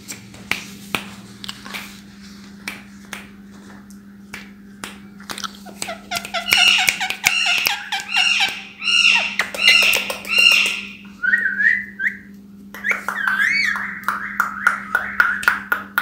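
Indian ringneck parrots calling: scattered clicks at first, then a run of quick repeated high chirps about two a second, a short rising whistle, and wavering whistled calls near the end. A steady low hum runs underneath.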